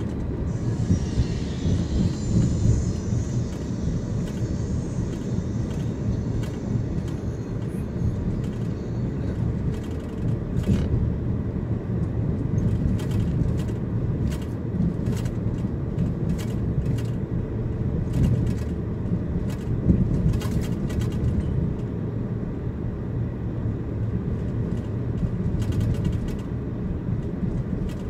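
Road and engine noise inside a moving car: a steady low rumble, with a high hiss over the first several seconds and scattered light clicks and rattles from about ten seconds in.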